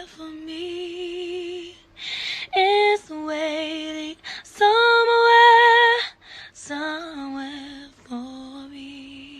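A woman singing the closing phrase of a song in long held notes with vibrato, broken by short breaths between phrases, fading away at the end.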